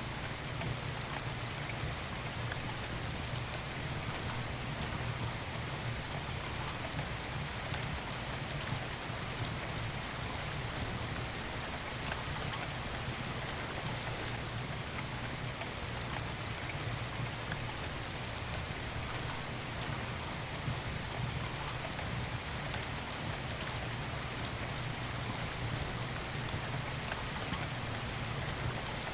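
Steady rain falling on a surface, an even hiss with a few sharp clicks now and then.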